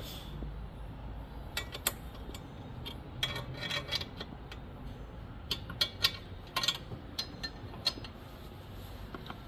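Light metallic clicks and clinks of parts and fittings being handled, coming in scattered clusters over a low steady hum.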